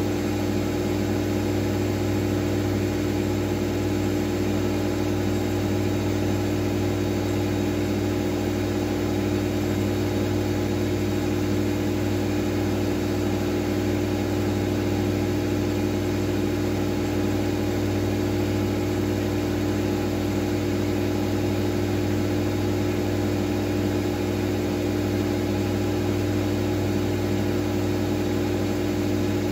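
Miele W433S washing machine spinning steadily at a constant speed, its motor humming at an unchanging pitch.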